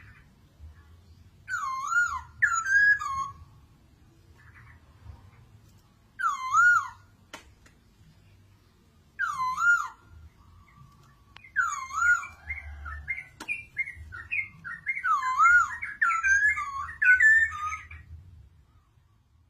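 Poksay mandarin laughingthrush singing: loud, looping whistled phrases repeated in short bursts with pauses between, running into a faster, more varied run of notes near the end.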